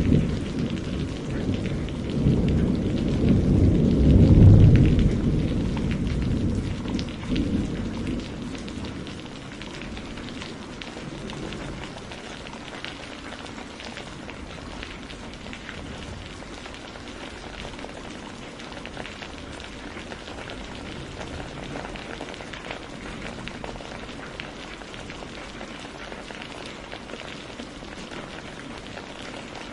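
Steady rain with a low roll of thunder that builds to its loudest about four seconds in and dies away by about eight seconds, leaving only the rain.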